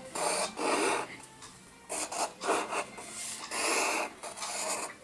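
Pencil scratching across paper on a wooden table in about six quick scribbling strokes, each roughly half a second long.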